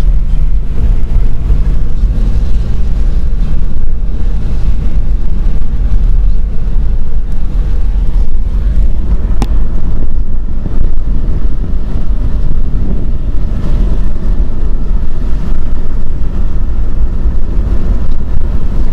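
Steady, loud low rumble of a vehicle on the move, with a single sharp click about nine and a half seconds in.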